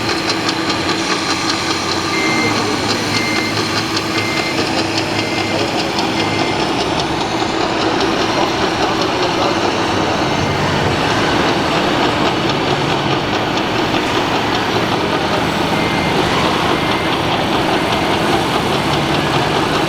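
Reversing beeper of an RC construction model sounding in short high beeps about once a second, stopping partway through and returning briefly near the end, over a steady mix of engine sound and crowd noise.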